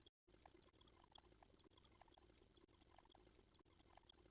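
Near silence: faint background noise with a few tiny ticks.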